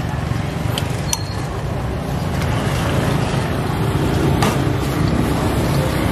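Steady low rumble of a street-food stall's wok gas burner mixed with passing street traffic, with a few sharp clicks about a second in and again past the middle.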